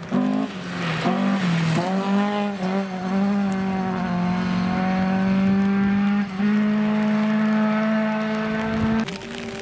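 Mk1 Ford Escort rally car's engine revving hard as it powers through a gravel corner, its pitch dipping at quick gear changes in the first two seconds and then holding a long steady pull. Loose gravel sprays from the tyres. The engine sound drops away a little after nine seconds.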